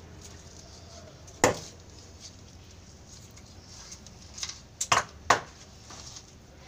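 Knife knocking against the tabletop while a large fish is gutted and cut open: one sharp knock about a second and a half in, then a quick run of three or four knocks around five seconds in.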